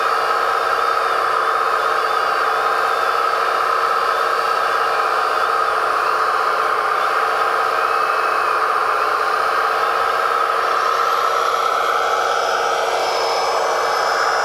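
A 1/14-scale RC hydraulic excavator, a Hitachi ZX135US replica, running steadily as it digs and swings its bucket. It makes a constant mid-pitched hum, with a brief rising whine about twelve seconds in.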